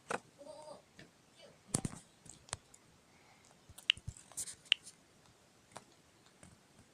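Scattered light clicks and taps, about half a dozen spread unevenly, from fingertips tapping a phone touchscreen while working in the PowerDirector editing app.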